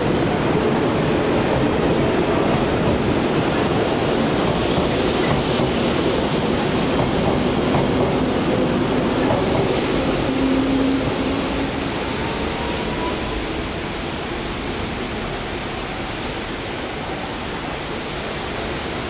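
Hanshin 5311-series electric train moving off and running past along the platform: a steady rumble of wheels on rail with a faint hum from the running gear. It fades a little from about 11 seconds in as the train pulls away.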